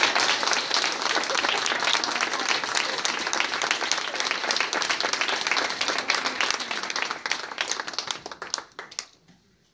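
Audience applauding in a small hall, many hands clapping, thinning out and dying away about nine seconds in.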